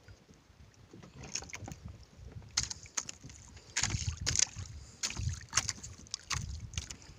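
Irregular knocks, thumps and splashy rustles aboard a small boat, coming in short bursts about a second apart.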